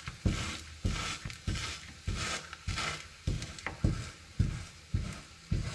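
A paratha being pressed down again and again with a round wooden presser in a hot pan with ghee: just under two presses a second, each a soft knock followed by a short burst of sizzling.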